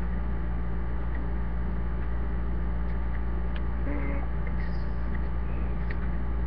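Steady low electrical hum with hiss, likely from the webcam's recording, with a few faint light clicks and a brief faint voice about four seconds in.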